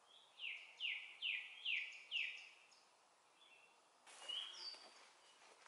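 Wild birdsong: one bird repeats a whistled note that slides downward five times in quick succession. After a pause, a few brief higher notes from a bird follow about four seconds in.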